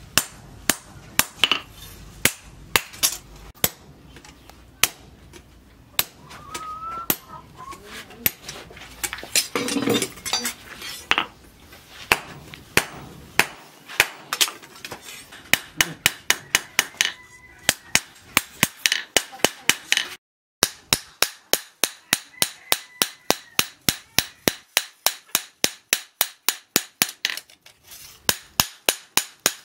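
Hand hammer striking a steel knife blade on a small steel post anvil, sharp metal-on-metal blows. They come irregularly at first, then settle about halfway in into a fast, even rhythm of about three blows a second.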